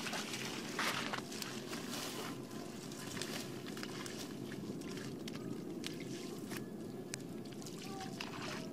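Squelching steps and small splashes in mud and shallow water, with rustling of water-hyacinth leaves as plants are pulled. Scattered short sounds sit over a steady low background rumble.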